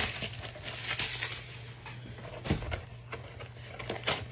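Light handling noises of card packaging being opened: a few sharp taps and faint rustling, over a steady low hum.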